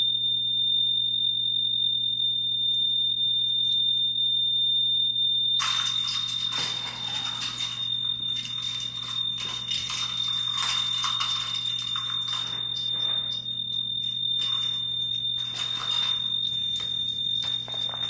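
Building fire alarm sounding one steady, unbroken high-pitched tone. From about six seconds in, rustling and clattering of handling noise joins it.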